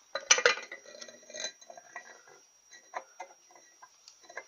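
Metal clinks and light knocks of a Powerglide rear oil pump being set down onto the cast iron transmission case and turned by hand to line up its bolt holes. A short ringing cluster comes just after the start, then scattered lighter taps.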